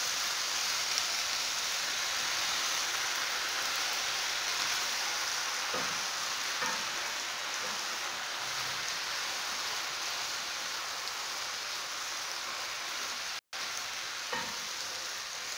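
Chopped spinach sizzling as it sautés in oil in a pan, a steady hiss, while a wooden spoon stirs through the leaves with a few soft knocks. The sound cuts out for an instant about 13 seconds in.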